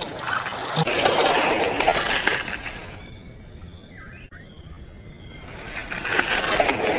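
Die-cast Lightning McQueen toy car's wheels rolling and rattling over a hard surface, in two stretches with a quieter pause between them.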